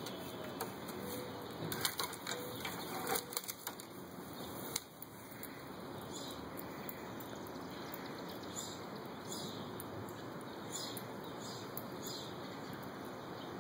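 A dog jumping at a stick hung from a tree, rustling tall grass and leaves, with a quick run of clicks and knocks in the first few seconds as it tugs at the stick. Afterwards, softer steady rustling as it noses through the grass.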